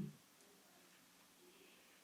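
Near silence: room tone with faint hiss.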